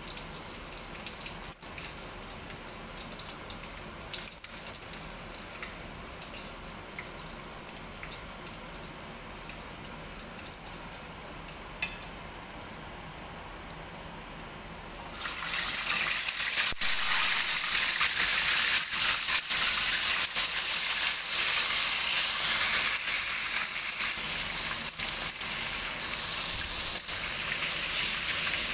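Whole fish deep-frying in hot oil in a stainless-steel wok. At first the oil sizzles quietly, with two short clicks. About halfway through a fresh batch of fish goes into the oil and the sizzling turns suddenly much louder and stays that way.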